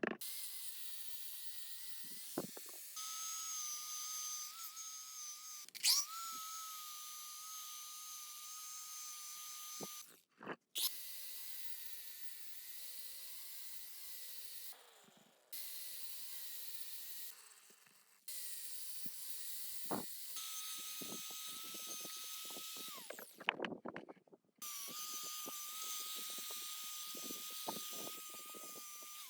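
Small handheld power tool running with a steady whine over a hiss, in several stretches that start and stop abruptly, with a few knocks and clicks between them.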